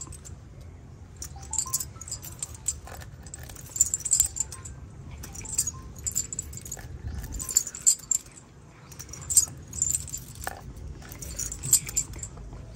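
Light metallic jingling in short, irregular clusters about once a second, over a low rumble.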